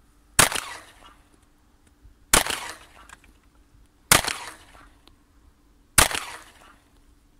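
Glock 43 subcompact 9 mm pistol fired four times in slow, aimed fire, a shot about every two seconds, each one trailing off briefly.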